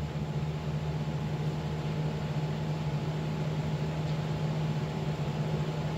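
Steady low hum over a faint even hiss: room tone, with no strikes or shouts.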